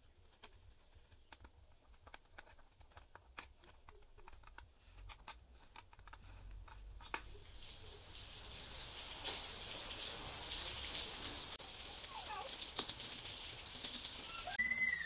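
Faint scattered clicks and light taps of small metal parts being handled. From about halfway a steady hiss sets in, with a few short squeaks near the end.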